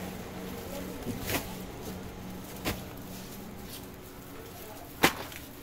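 Busy market-stall background noise with a steady low hum and faint distant chatter, broken by three sharp knocks: one just over a second in, one near the middle and a louder one near the end.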